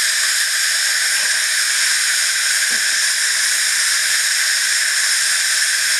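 Steady, loud hiss of steam escaping from a 7¼ inch gauge 0-6-0 live steam locomotive standing in steam.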